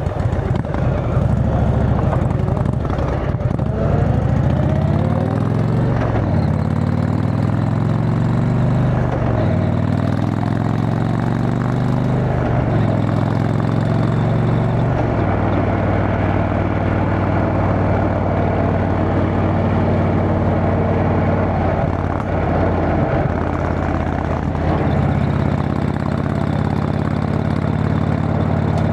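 Indian Chieftain Dark Horse motorcycle's V-twin running through a Freedom Performance aftermarket exhaust, its leaking exhaust gasket freshly replaced. It pulls away and accelerates up through several gears, the pitch climbing and dropping at each shift over the first dozen seconds, then settles to a steady cruise.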